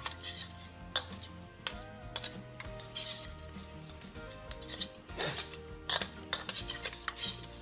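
Metal spoon stirring warm water with dissolving yeast and sugar in a stainless steel bowl, scraping and clinking repeatedly against the bowl's sides and bottom. Background music plays underneath.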